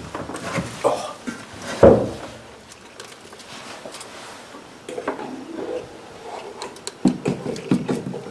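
Knocks and light clinks of a new fuel pump module and its wiring being handled and lowered into the fuel tank's opening, with a sharp knock about two seconds in and more clicks near the end.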